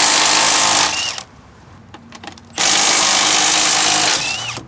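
Impact wrench with a 19mm socket running in two bursts, each about a second and a half long, spinning off the front wheel lug nuts.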